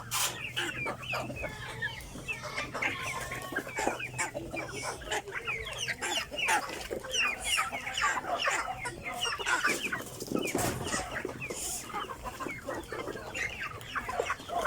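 A flock of chickens clucking and calling continuously, many short overlapping calls at once. A faint low hum runs under the first half.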